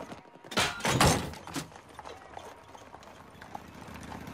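Horse hooves clip-clopping on the road as a two-horse carriage passes, in a cartoon soundtrack. A loud brief burst of noise, like a thump, comes about a second in.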